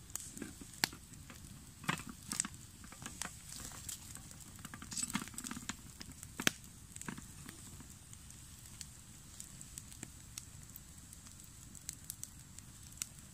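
Wood campfire crackling with sharp, irregular pops. A few louder knocks come around the middle as a saucepan is shifted on the burning sticks.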